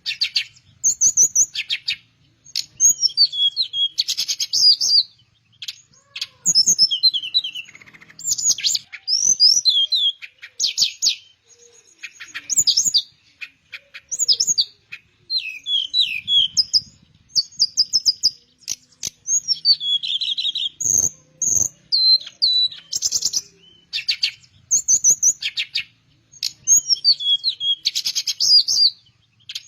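Teledekan, a Cyornis blue flycatcher, singing in quick high phrases of sweet, warbling notes, repeated over and over with short pauses between them.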